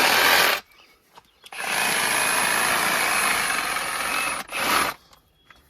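Reciprocating saw (Sawzall) running in bursts as it cuts through the pig carcass: a run that stops shortly after the start, a long run of about three seconds from about a second and a half in, and a brief last burst near the end.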